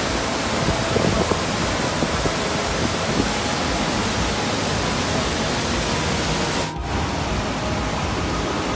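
Steady storm noise: a loud, dense, even rush of wind and heavy rain, with a brief dip about seven seconds in where one clip cuts to the next.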